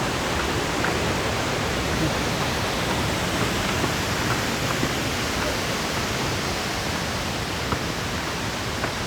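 Waterfall rushing: the steady, even noise of falling water.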